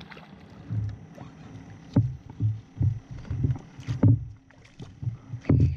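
A series of dull thumps and knocks on the boat, about eight, irregularly spaced, as people move about and grab the landing net to bring in a fish; the last, near the end, is the loudest.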